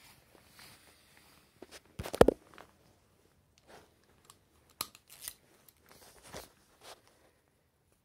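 Handling noises while working on a hedge trimmer's spark plug: irregular clicks and knocks of a spark plug socket, ratchet and plastic parts, with a louder clatter about two seconds in.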